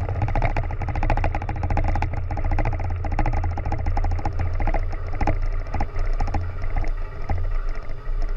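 Steady low mechanical running noise with a fast, dense rattling clatter over it, unchanging throughout.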